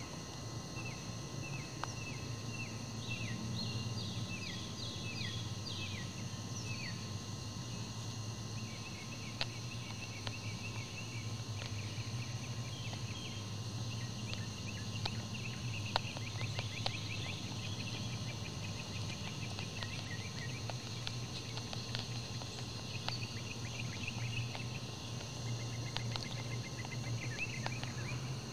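Evening field ambience: a steady chorus of insects, with a bird calling in short, repeated downward-sliding notes through the first few seconds. A steady low hum sits underneath, and a few faint sharp clicks come through about a third of the way in and again later.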